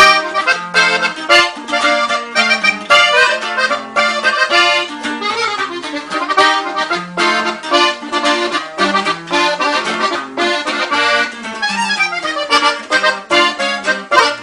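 Instrumental break in a norteño corrido: an accordion playing a fast run of notes over a bass line and plucked-string accompaniment.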